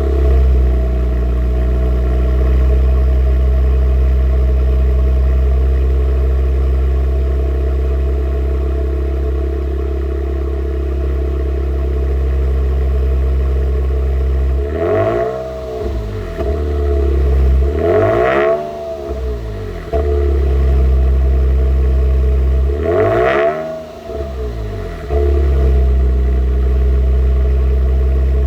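Lexus IS200's straight-six engine idling steadily through a Kakimoto Hyper Full Mega N1 muffler and straight centre pipe. It is blipped three times in the second half, each rev rising and falling quickly back to idle.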